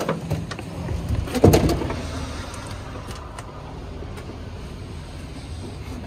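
Rear door of a small van being unlatched and swung open: a click at the start, then a dull thump about a second and a half in, followed by a steady low rumble.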